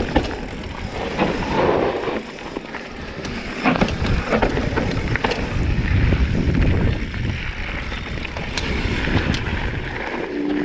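Giant Trance full-suspension mountain bike descending a rough downhill trail: tyres rolling over dirt and rocks, with frequent clicks and rattles from the bike and wind noise on the microphone.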